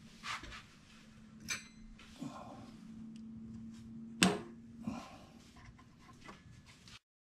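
A sharp click from the front-panel controls of a Carver PM-900 power amplifier, the loudest sound, a little past four seconds in, with a steady low hum for a couple of seconds around it that stops soon after. A few lighter clicks and knocks of handling come before it, and the sound cuts off abruptly near the end.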